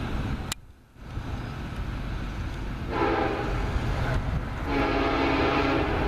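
Norfolk Southern freight train passing: the steady low rumble of rolling freight cars, with the lead SD70M-2 locomotive's air horn sounding two blasts, a long one about three seconds in and a second starting shortly after and still going at the end. The sound briefly drops out about half a second in.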